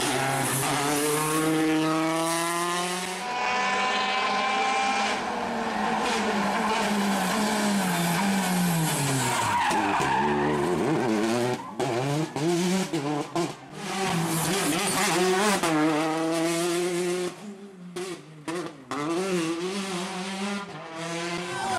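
Peugeot 208 T16 R5 rally car's turbocharged four-cylinder engine revving hard through corners, its pitch climbing and dropping again and again with gear changes and lifts, with tyres skidding on tarmac. The engine note breaks off abruptly several times in the second half.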